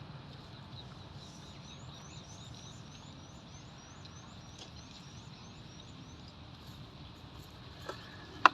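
A bird calling: a high, rising chirp repeated about three times a second for several seconds, over steady low background noise. A sharp click near the end is the loudest sound.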